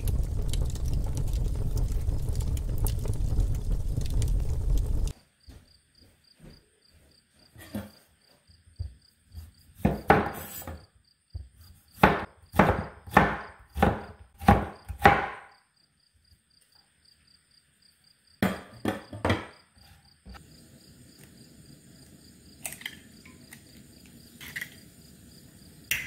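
Wind buffeting the microphone for the first five seconds. Then a kitchen knife chopping cucumber slices on a wooden cutting board, about two strokes a second, with a few more strokes later. Near the end comes the faint sizzle of an egg frying in oil in a nonstick pan, and a faint high, evenly pulsing chirp sounds under it all.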